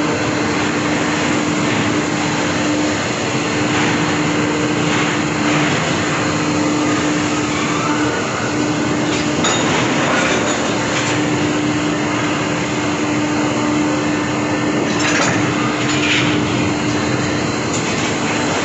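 Loaded railway coal wagon being pushed along the rails by a wagon tippler's side arm charger: steady rolling and machinery noise with a constant hum and a few brief metallic clicks.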